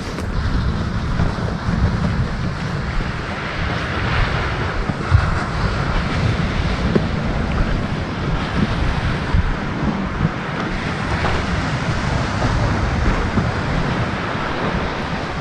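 Ocean surf washing steadily, with wind gusting and rumbling on the microphone.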